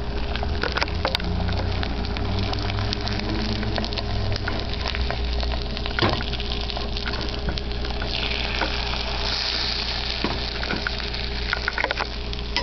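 Beaten egg frying in butter in a frying pan, a steady sizzle with scattered small pops and crackles. The sizzle turns to a brighter hiss for about two seconds about two-thirds of the way through.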